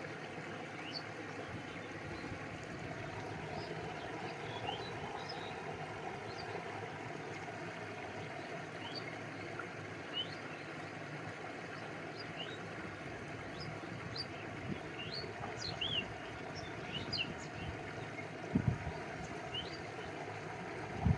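Stream flowing in a steady rush, with water lapping close by and a couple of low plops near the end. Short high bird chirps are scattered throughout.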